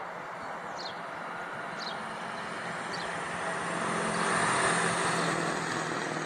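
A school bus driving past on the road: engine and tyre noise with a steady low hum, growing louder to a peak about four to five seconds in. Short high chirps repeat about once a second in the first few seconds.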